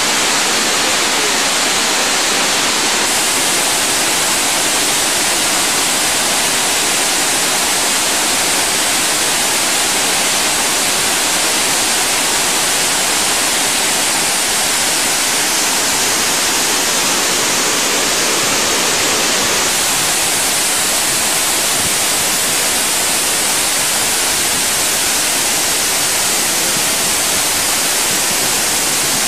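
Steady, loud rush of falling or fast-flowing water, an even hiss with no breaks.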